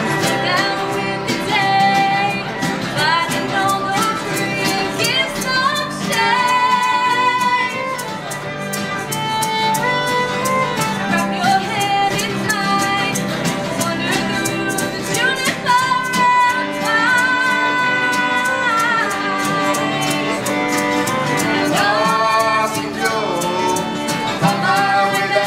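Live folk band playing a song: a fiddle carries the melody in sliding, held notes over a full accompaniment with a steady rhythm.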